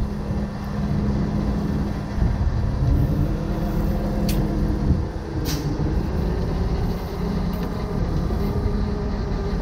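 Heavy truck diesel engine running steadily with a constant low hum, under strong wind buffeting the microphone. Two short sharp clicks come about a second apart near the middle.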